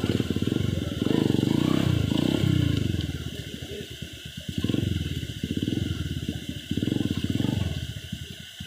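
Trail dirt bike's engine running at low revs in rapid pulses, swelling and easing several times with the throttle as the bike is worked across, over the steady rush of a stream.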